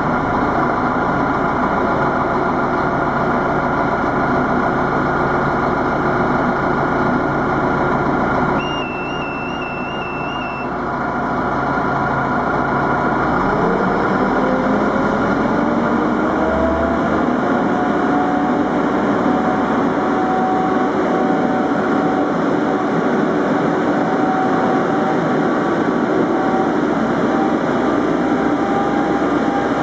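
Diesel engine of a Scharf diesel-electric overhead monorail mining locomotive running steadily just after starting up. About nine seconds in, the locomotive's warbling warning signal sounds for about two seconds. From about thirteen seconds, a note rises in pitch over a few seconds and then holds steady at the higher pitch.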